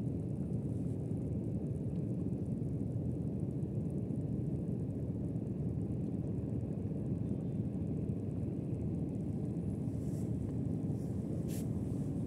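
Steady low rumble of wind and sea at the water's edge, with one brief faint tick near the end.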